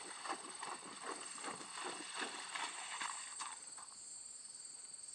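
A horse's hooves splashing through a shallow pond in a steady rhythm of about two and a half strides a second, fading out about three and a half seconds in as it leaves the water. Insects trill steadily in the background.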